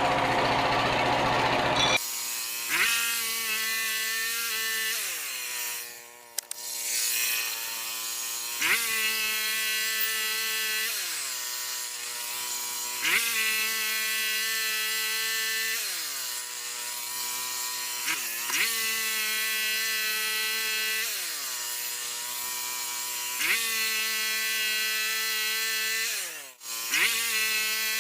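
Portable bandsaw sawmill's engine running and cutting, its pitch dropping and then holding steady in repeated cycles about every five seconds as the blade works through the log.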